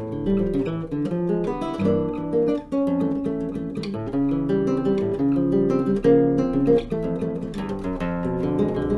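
Solo nylon-string classical guitar played fingerstyle: a continuous flow of plucked melody notes over bass notes and chords.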